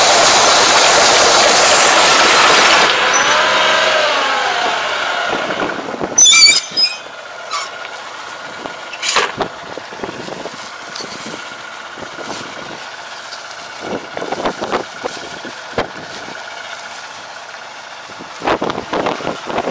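Tractor-drawn ridging and mulching implement running with loud, even rushing and rattling close by, fading away over the first few seconds. A brief squeal comes about six seconds in. Then the tractor idles, with scattered clicks and rustling of plastic mulch film.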